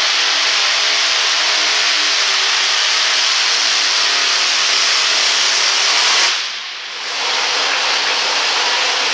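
Supercharged engine of a modified pickup pulling truck running hard at full throttle while dragging a weight-transfer sled. The sound is loud and steady, dips briefly about six and a half seconds in, then picks back up.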